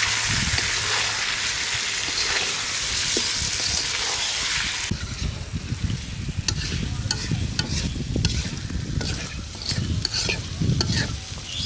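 Chicken pieces frying in hot oil and spices in a pan, sizzling strongly while a spatula stirs them. About five seconds in the sizzle drops off abruptly, leaving irregular scrapes and knocks of the spatula against the pan.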